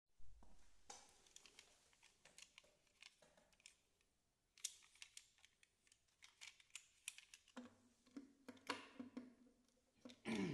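Faint scattered clicks and taps of small objects being handled, with a faint low hum joining about two-thirds of the way through.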